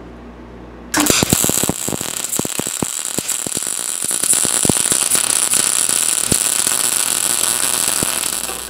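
Wire-feed (MIG) welder arc crackling and sizzling on steel as a weld is run. It starts abruptly about a second in and stops just before the end.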